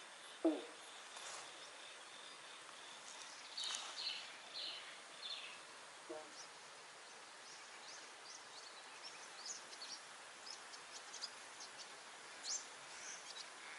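Faint outdoor ambience with scattered short bird calls and chirps. A brief, low, falling call comes about half a second in, and a steady high insect-like whine runs through the first few seconds.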